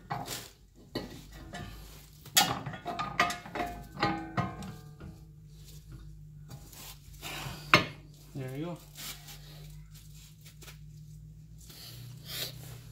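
Metal clanking and rattling with short ringing as a Honda Prelude's front brake rotor is slid over the wheel studs onto the hub, mostly in the first five seconds, then a single sharp click near eight seconds in. A steady low hum runs underneath.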